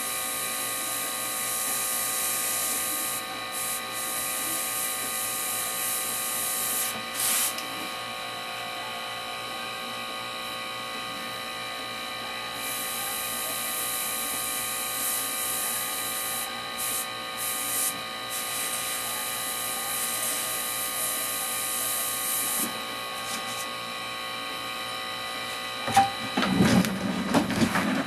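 Airbrush spraying paint: long stretches of airy hiss that start and stop as the trigger is worked, over a steady mechanical hum with several constant tones. Near the end, a few louder knocks and clatter.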